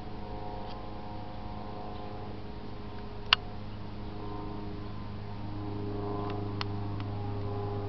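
Cessna 172K Skyhawk's four-cylinder piston engine and propeller droning overhead, a steady low hum with overtones that grows slightly louder and shifts in pitch in the second half as the plane comes nearer. A single sharp click about three seconds in.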